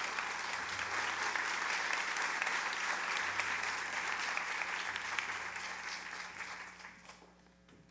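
Audience applauding, a dense, even clapping that fades out near the end.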